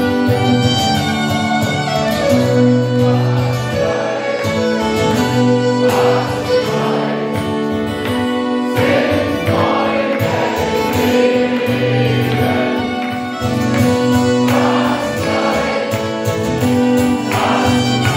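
Live band playing an instrumental passage, with a violin carrying the melody over sustained accompaniment.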